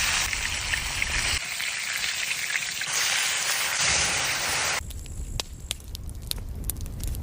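Fish frying in hot oil: a dense sizzle with crackling. About two-thirds of the way through the sizzle drops away abruptly, leaving scattered pops and crackles.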